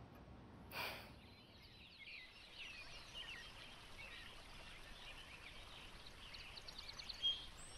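Faint birdsong: several small birds chirping and twittering in short, quick phrases, with a rapid trill near the end and a short clear whistle just before it ends. A brief rushing sound, like a breath, comes about a second in.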